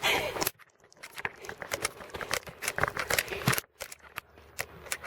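Irregular scattered knocks and clicks over a low background noise, dropping briefly to near quiet about half a second in and again a little past three and a half seconds.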